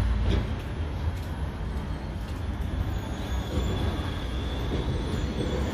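Low-floor electric tram rolling in on street rails and slowing for the stop, with a steady low rumble. A faint high whine comes in about halfway through.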